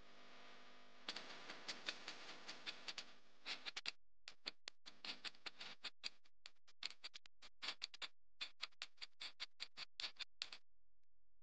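Countdown timer ticking: a run of quick, sharp ticks starts about a second in and stops shortly before the end, counting down the guessing time.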